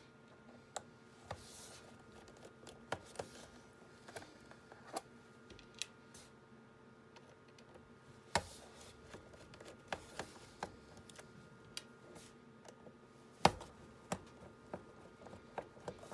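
Irregular small clicks and taps of a screwdriver working the tiny screws out of a MacBook Pro's bottom cover and the screws being handled, with two louder knocks, about eight and thirteen seconds in, over a faint steady hum.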